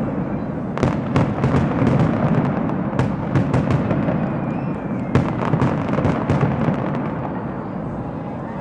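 Fireworks display going off: a rapid, irregular run of sharp bangs and crackling pops over a continuous low rumble, easing slightly near the end.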